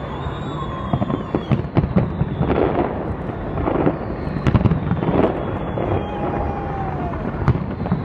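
Large fireworks display: repeated loud bangs of bursting shells, several a second at times, over a continuous rumble, with thin whistles gliding through it.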